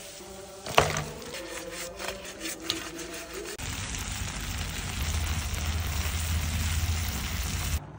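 Food sizzling in a hot pan, with a sharp clack just before a second in. From about three and a half seconds in the sizzle becomes louder and steadier, then it cuts off abruptly just before the end.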